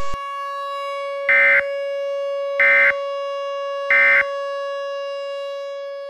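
Three short bursts of Emergency Alert System end-of-message data tones, evenly spaced about a second apart, over a steady electronic drone tone that fades out near the end.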